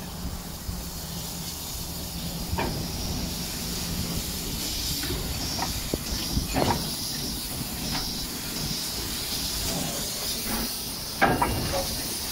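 Steam hissing steadily from the standing saddle-tank steam locomotive Brookes No. 1, with several short knocks; the loudest comes near the end.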